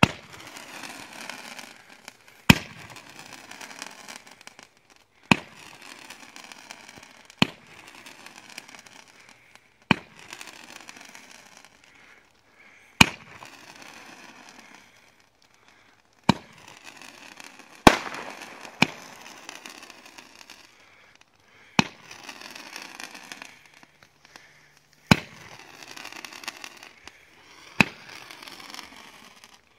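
An old consumer firework cake firing its shots one at a time. About a dozen sharp bangs come unevenly, one to three seconds apart, and each is followed by a few seconds of hissing crackle. The lift charge is not working properly, a sign of the cake's age.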